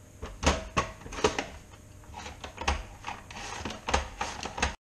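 Potato being pushed across a plastic mandoline slicer's blade: a series of sharp scraping strokes and knocks, irregularly spaced, as slices are cut. The sound cuts off suddenly near the end.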